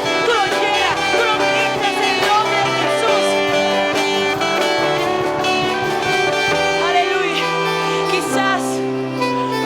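Church worship music played by a band: held chords over a bass line that moves to a new note every second or two, with a melody line bending in pitch above.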